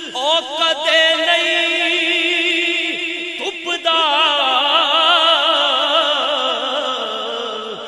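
A man singing Punjabi Sufi kalaam in a slow, drawn-out style, with heavy vibrato on held notes. After a brief break about three and a half seconds in, he holds one long wavering line that slowly falls in pitch.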